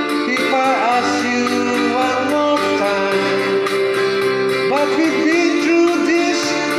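Country-folk song: a voice singing a melody over guitar accompaniment.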